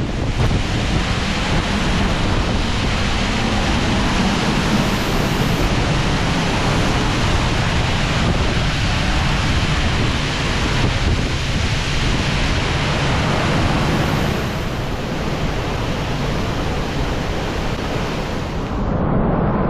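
Waterfall: a loud, steady rush of falling water with a deep rumble underneath. Near the end the sound turns abruptly duller.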